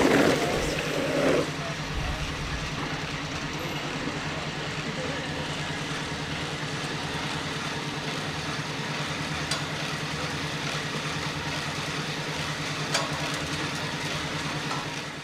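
A steady low machine hum, like an idling motor, under a louder rush of noise in the first second and a half. The hum fades out at the very end.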